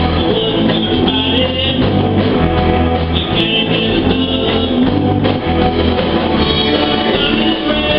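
A small live rock band plays a song with electric guitars and a drum kit, recorded in low fidelity.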